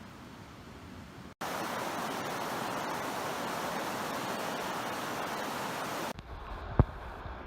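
Rushing creek water, a steady hiss that jumps sharply louder about a second and a half in and drops back quieter about six seconds in. A single short thump near the end.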